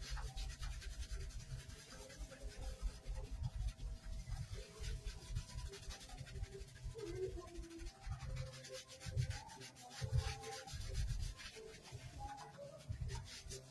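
Hands scrubbing shampoo lather into a wet dog's short coat: rapid, uneven rubbing strokes with soft low thuds.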